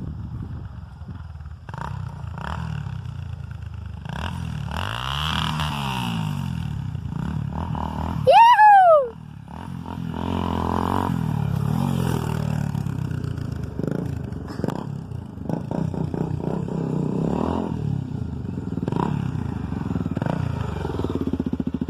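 Trail motorcycle engine, a Honda Tornado single-cylinder four-stroke, running and revving on the trail, with its pitch swinging up and down as it passes about five seconds in. About eight seconds in, a loud short call rises and falls in pitch. Clattering and revving follow.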